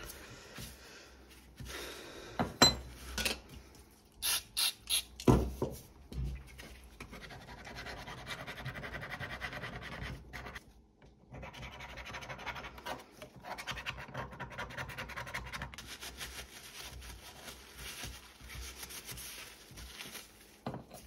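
Paper shop towel scrubbed back and forth over a dismantled secateurs blade, a steady rubbing scratch as grime is wiped off the metal. A few sharp knocks and clicks of the blade being handled come in the first six seconds, with a short pause in the rubbing about halfway through.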